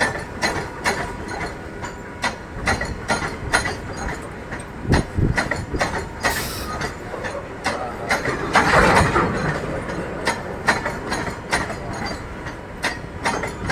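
Mumbai suburban local train running, its wheels clacking sharply and irregularly over rail joints over a steady rumble, with a louder rushing swell about nine seconds in.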